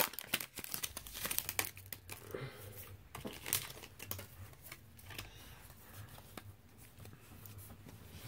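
A Pokémon Guardians Rising booster pack's foil wrapper crinkling and tearing as it is opened by hand. A quick run of crackles thins out into fainter, sparser rustling after about two seconds.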